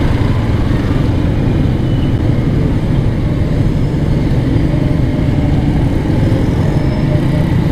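Motorcycle engine running steadily at low speed in slow traffic, a constant low hum with the noise of the surrounding traffic.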